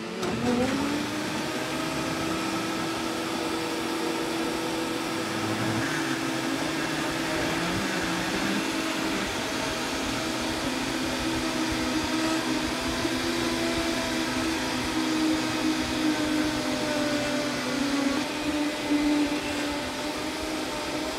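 High-speed Vitamix blender motor running at full speed, blending a full jar of fruit and greens into juice. It is a loud, steady whine over whooshing blade noise; the pitch climbs as it spins up right at the start, then holds.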